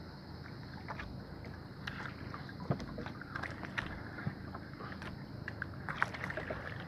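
Steady wash of wind and sea water around a small outrigger fishing boat, with irregular light clicks and knocks from a spinning rod and reel being handled close by.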